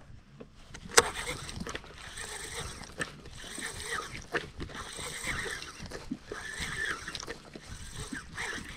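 Baitcasting reel being cranked to retrieve a lure, with water moving against the boat and a sharp click about a second in.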